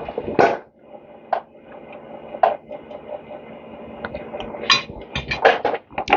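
Metal clinks and taps as small engine starter parts and hand tools are handled and knocked together, a few separate clinks and then a quicker run of them near the end.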